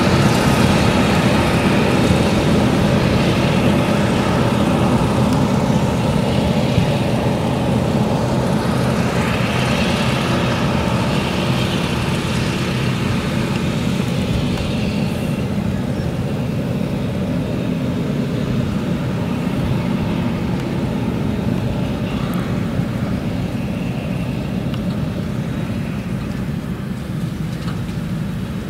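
Claas Jaguar 970 self-propelled forage harvester chopping maize: a steady heavy engine drone with the rushing hiss of the chopped crop being blown out, slowly growing fainter as the machine moves away.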